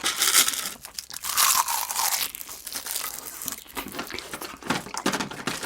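Close-miked crunching and chewing of crispy breaded pork cutlet, densest in the first two seconds and then sparser, broken crackles.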